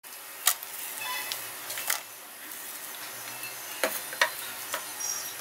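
A spoon scraping and knocking coarse ground chana dal paste out of a stainless-steel mixer jar into a steel bowl: several scattered knocks and scrapes.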